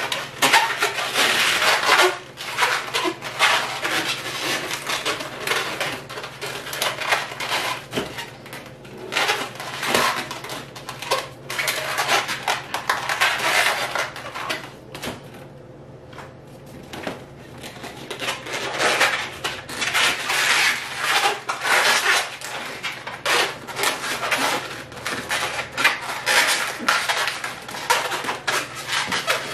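Latex twisting balloons being rubbed and twisted by hand: squishy rubber squeaks and rubbing that come and go, with a quieter stretch about halfway through.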